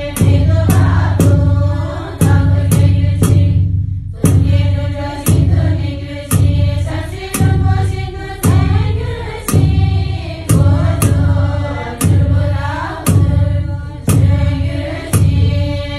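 Tibetan Buddhist ritual music: a large nga drum struck with a curved beater about once a second, hand cymbals clashing, and nuns chanting in unison.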